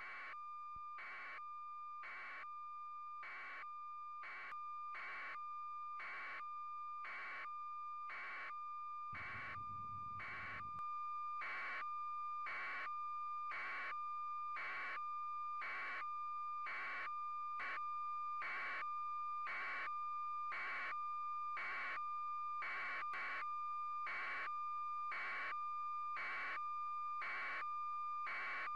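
A steady high electronic tone held throughout, with a short noisy pulse about once a second. A brief low rumble swells in about nine seconds in.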